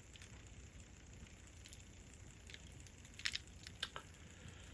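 Campfire burning with faint crackling and a few scattered sharp pops, the loudest a quick double pop about three seconds in.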